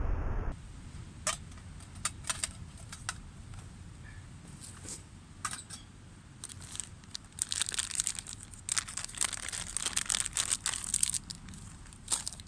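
Packaging being handled, crinkled and torn open: scattered sharp crackles, then a dense run of crinkling partway through.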